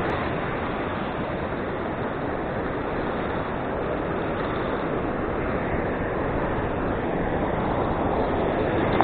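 Beach surf and wind on the microphone: a steady rushing noise that swells slightly near the end.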